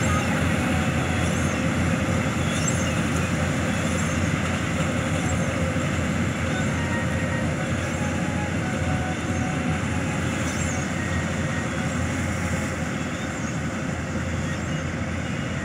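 Several Landforce combine harvesters running in the field: a steady, dense machine drone with a low rumble and a steady hum, easing slightly quieter toward the end.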